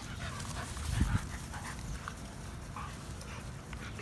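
A bully-breed dog panting in quick, soft breaths, with a low thump about a second in.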